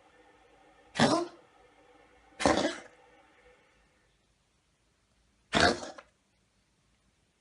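A domestic cat coughing: three short coughs, two about a second and a half apart and the third after a pause of about three seconds.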